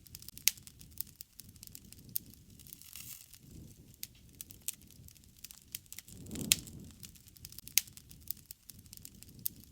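Wood bonfire crackling, with scattered sharp pops, the loudest about half a second in and near the eight-second mark, over a low rush of flame that swells twice.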